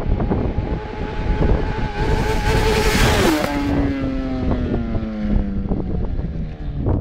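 Honda CBR1000RR's inline-four engine at high revs as the sportbike passes close by about three seconds in. Its pitch drops sharply at the pass, then keeps falling as it pulls away. Wind rumbles on the microphone throughout.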